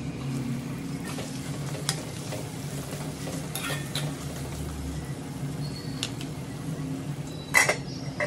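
Food sizzling in a pan while being stirred, the metal spoon clinking against the pan a few times with the loudest knock near the end, over a steady low hum.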